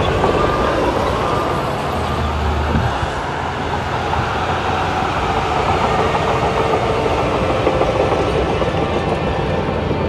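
Heavy diesel earthmoving machinery running steadily under load, a continuous low engine drone with broad mechanical noise over it.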